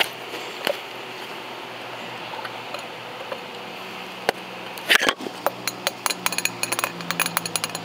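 Light taps and clicks on an upturned clear cup holding a beetle. Fairly quiet for about four seconds, then a sharp knock, a louder clatter about a second later, and a quick irregular run of clicks to the end.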